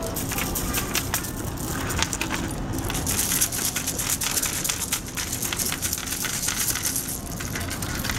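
Packets of beads crinkling, their beads clicking and rattling, as a hand rifles through them on metal pegboard display hooks: a steady run of small crackles and clicks.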